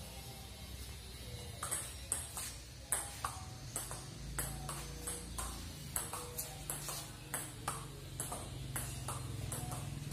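Table tennis rally: the ball clicking off the paddles and the table in quick alternation, two or three hits a second, starting about a second and a half in.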